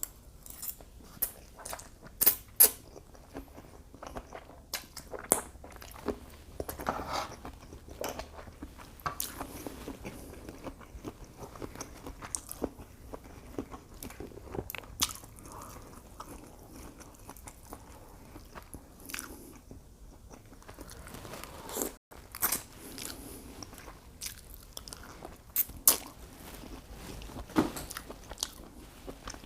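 A person eating shrimp and mussels with fettuccine close to the microphone: chewing and biting, with irregular sharp smacks and clicks.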